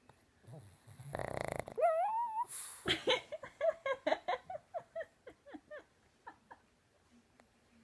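A pug snoring: one short, harsh rasping snore about a second in, then a rising squeaky whine, then a string of short squeaky sounds that trail off over a few seconds.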